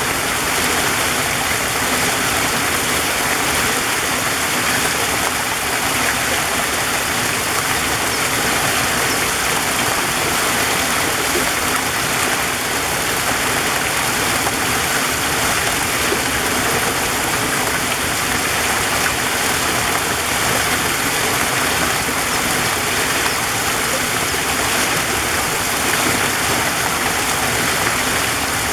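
Waterfall running steadily: a constant, even rush of falling water.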